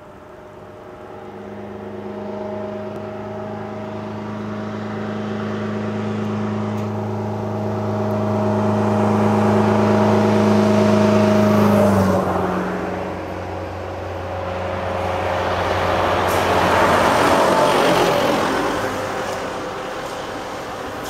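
Two road vehicles pass close by in turn. First a minibus engine runs at a steady pitch, growing louder until it goes past about twelve seconds in, when its pitch drops. Then a ZiU-683B articulated trolleybus passes, a swell of rolling and tyre noise that peaks a few seconds later.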